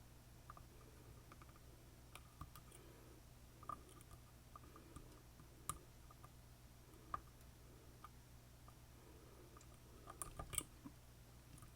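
Faint, irregular small metallic clicks of a lock pick working the pins of an Assa Twin Combi lock cylinder, with a quick cluster of louder clicks near the end.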